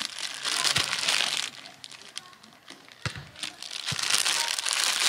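Thin plastic bag of pre-cut vegetables crinkling as it is handled, in two spells with a quieter pause around the middle.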